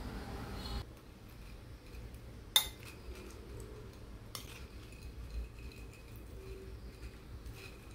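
A metal spoon clinking against a ceramic plate: one sharp clink about two and a half seconds in, a lighter one almost two seconds later, and a few faint taps near the end.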